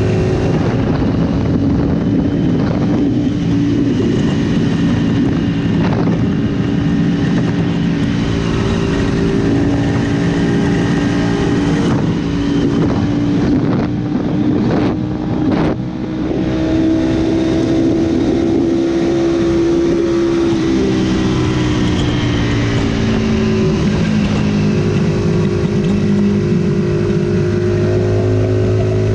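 Aprilia sport bike's engine running hard at motorway speed, heard from the rider's seat as a steady drone under heavy wind rush, with a brief dip in level about halfway through.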